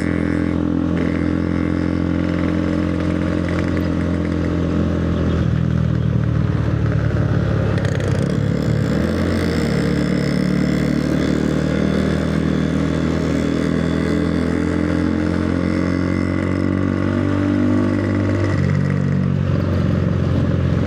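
Motorcycle engine running under way, a steady drone whose pitch shifts about five seconds in, climbs slowly, and changes again near the end.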